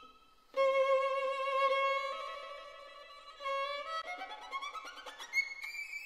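Background violin music: held melody notes that enter about half a second in, with a long slide up in pitch near the end.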